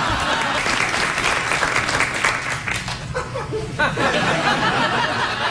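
Studio audience applauding and laughing, the clapping dying down about three seconds in.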